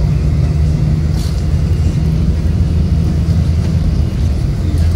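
Steady low engine drone and road noise inside the cabin of a moving vehicle.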